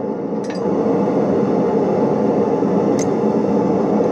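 Blacksmith's forge running with a steady rushing noise of air and fire, a little louder from about half a second in. A couple of light metallic clicks come near the start and a single sharp tick about three seconds in, from the tongs and hot iron being handled.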